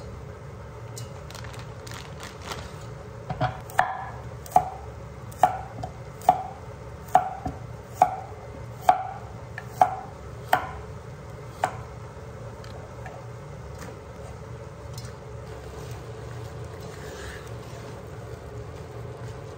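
Kitchen knife chopping a carrot on a wooden cutting board: about a dozen sharp knocks, a little under one a second, starting a few seconds in and stopping just past halfway.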